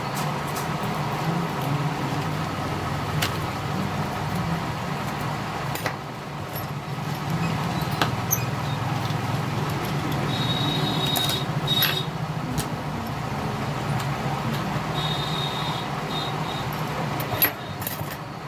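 Light clicks and taps of a metal tool and tweezers against a feature phone's plastic frame as it is pried apart, four sharp clicks in all, over a steady low mechanical hum.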